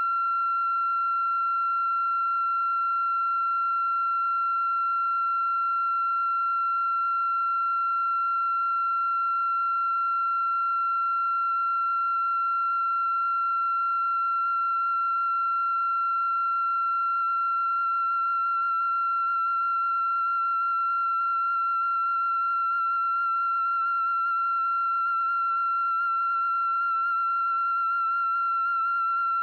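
A steady, high-pitched electronic tone held on one pitch with faint overtones, wavering slightly in pitch in the second half.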